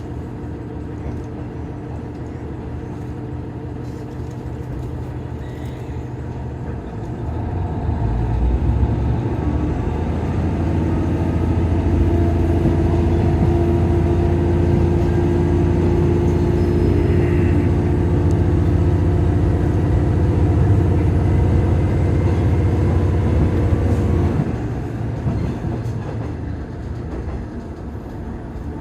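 Diesel railcar engine on the Iiyama Line, a KiHa 110 series, running at a low steady hum, then opening up about a quarter of the way in as the train powers ahead. It holds a loud, steady drone for about fifteen seconds, then eases off as the throttle is shut and the train coasts.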